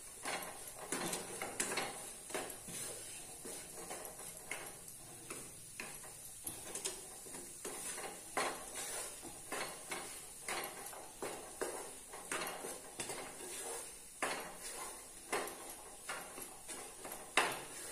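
Wooden spatula scraping and tapping against a nonstick frying pan while stirring a thick potato and pea mixture, in irregular strokes about once or twice a second.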